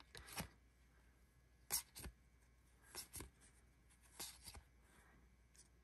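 Baseball trading cards being slid and flicked off the front of a hand-held stack, one at a time: a series of brief, faint swishes and clicks a second or so apart.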